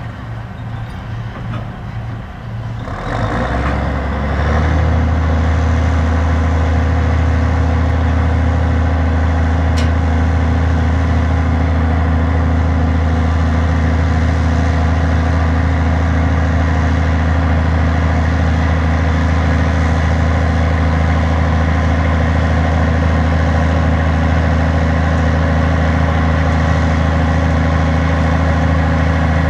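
Heavy diesel engine of a large farm harvest machine. It grows louder over the first few seconds, then runs steadily close by with a deep, even drone.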